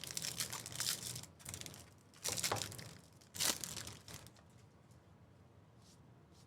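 Wrapper of a baseball card pack crinkling and tearing open, in several rustling bursts with the two loudest about two and a half and three and a half seconds in, then only faint handling.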